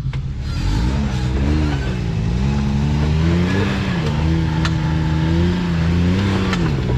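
Side-by-side UTV engine revving up and down several times under throttle, held steady for a stretch in the middle, as the machine works up a steep climb during a strap recovery. Two sharp clicks in the second half.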